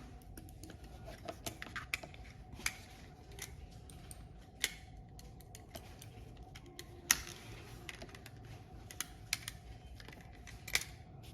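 Irregular sharp plastic clicks and taps from the Akko LW325 computer mouse as it is handled and clicked while being checked for its double-click fault, about fifteen clicks spread unevenly, the loudest about seven seconds in.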